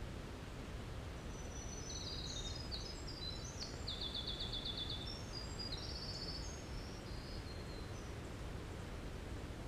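Winter wren singing one long song, a fast run of high trills and notes that jump in pitch, lasting about six seconds, over a steady low background rumble.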